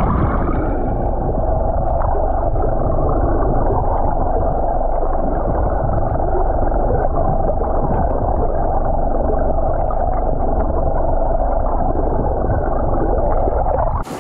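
Boat engine and propeller heard underwater through a submerged camera housing: a steady muffled drone with a constant hum, mixed with the rush and gurgle of water and bubbles along the hull.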